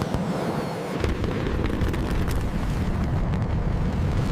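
Jet engine roar: a loud, steady, rumbling noise with a crackling edge that grows heavier in the low end about a second in.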